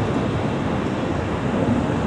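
Boeing 757 jet engines giving a steady rushing roar with a deep rumble underneath.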